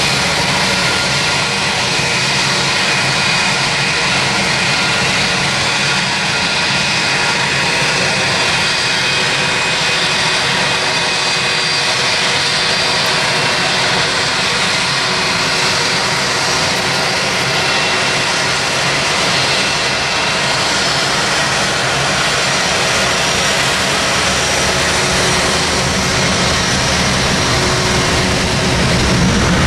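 Jet engines of an Airbus A321 running at low thrust while it taxis and lines up on the runway: a steady rushing hum with a thin high whine held on top. It grows slightly louder near the end as it begins its take-off roll.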